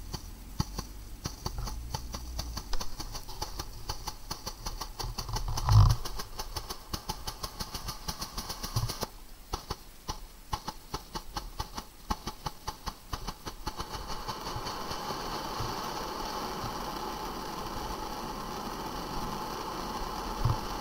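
Lesli Wonder Cones firework fountain burning: rapid crackling for the first dozen seconds, with a thump about six seconds in, then a steady hiss as it sprays sparks at full strength.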